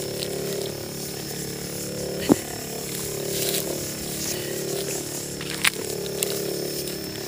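Motorized knapsack crop sprayer running with a steady hum while its lance sprays over young corn seedlings. Two sharp clicks come about two and five and a half seconds in.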